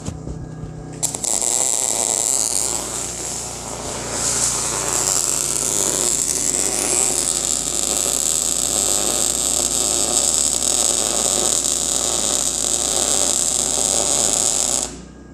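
Wire-feed (MIG) welding arc crackling and hissing steadily as one continuous bead is run on quarter-inch steel plate. It strikes about a second in and cuts off sharply near the end.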